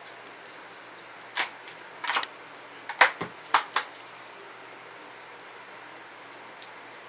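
A handful of sharp slaps and clicks over about two and a half seconds, the loudest about three seconds in. Hands are patting and pressing together while liquid foundation is worked between the palms and onto a face, and a small makeup bottle is being handled.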